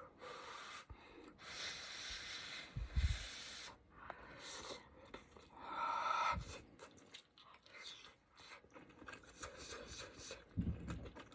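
Quiet, intermittent mouth noises of someone eating a noodle stew, with a few soft low thumps and scattered clicks.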